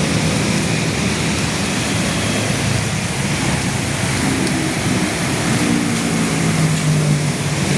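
Steady rushing noise of storm wind and rain, with a vehicle engine humming low underneath that shifts pitch a little partway through.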